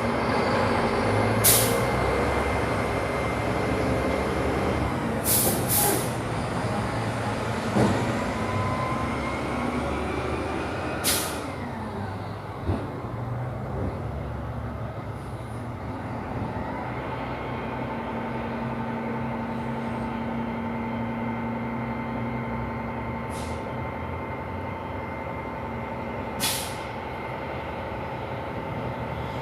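Recycling truck's engine running steadily, with about six short, sharp hisses of released air; a steady whine joins in about halfway through.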